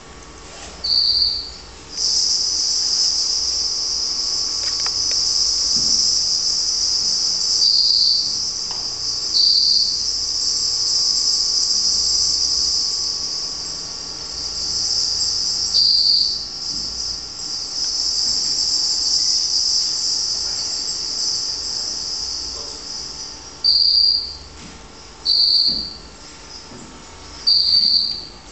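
Insect chorus, cricket-like: a steady high buzzing sets in about two seconds in and fades near the end, with short, loud, high chirps every few seconds, three in quick succession near the end.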